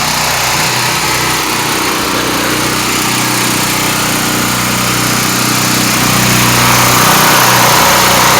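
Small gas engine of a pressure washer running steadily, a little louder from about six seconds in.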